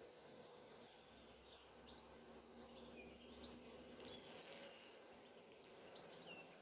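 Faint buzzing of bees, a low steady hum, with scattered faint bird chirps and a brief hiss about four seconds in.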